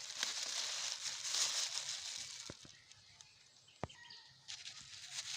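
Rustling and crinkling as collected litter is handled, quieter in the middle, with two short knocks about two and a half and four seconds in.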